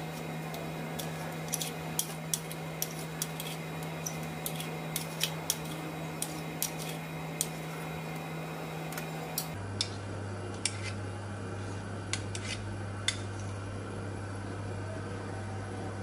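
Steel spoons clinking in irregular light clicks as chicken meatball mixture is scooped and shaped between them, over a steady low hum.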